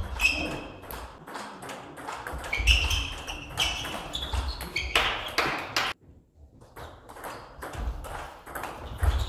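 Table tennis rally: a fast, irregular series of sharp clicks as the plastic ball strikes the bats and the table. Short high squeaks run through it, and the sound drops out briefly about six seconds in.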